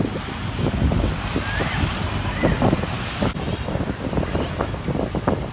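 Wind buffeting the microphone of a moving camera: a loud, uneven, gusty rumble, with faint street sounds beneath. The background hiss changes abruptly about three seconds in.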